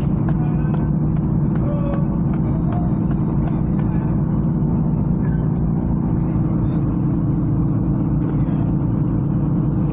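A large engine running steadily with an unbroken low drone, with a few faint knocks over it.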